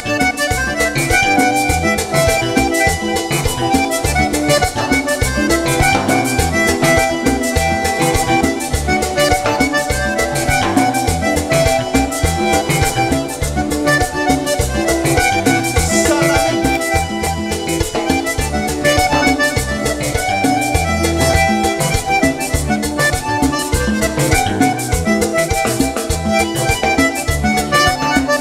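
Instrumental introduction of a Panamanian música típica song played live by a band: a diatonic button accordion carries the melody over bass guitar, drums and percussion, with no singing.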